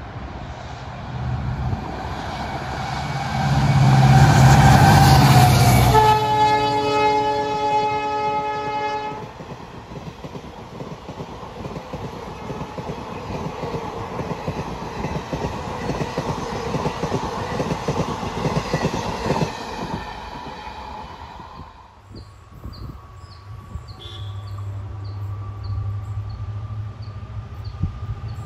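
A WDG4 diesel locomotive, with its EMD two-stroke engine, passes at speed hauling an express. Its engine rumble builds to a loud peak as it goes by, and its multi-tone horn then sounds for about three seconds. The coaches' wheels follow, clattering over the rail joints for about twelve seconds, and near the end the low rumble of another diesel locomotive approaching rises.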